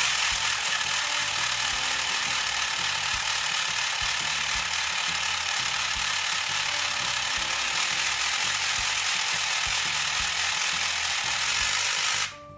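Super Quiller's battery-powered motor driving the Crimping Buddy attachment's gears as a paper strip is fed through and crimped: a loud, steady mechanical gear noise that cuts off abruptly near the end.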